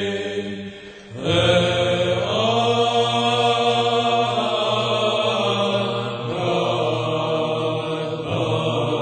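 Chanting of a psalm in long held notes over a steady low tone. There is a short break about a second in, then a new phrase begins.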